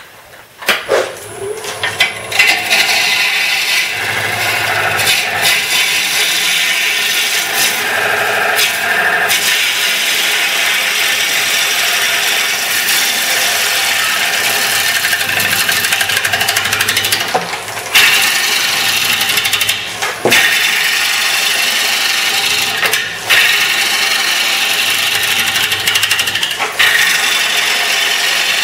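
Lathe tool cutting into a spinning ash bowl blank while roughing out its outside: a steady hiss of cutting, starting with a few sharp knocks in the first two seconds and broken by short pauses several times in the second half as the tool comes off the wood.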